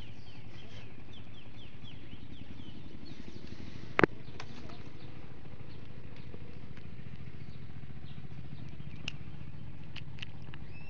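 Outdoor ambience: a steady low hum under short, quick bird-like chirps in the first second or so, with one sharp click about four seconds in and a few faint ticks later.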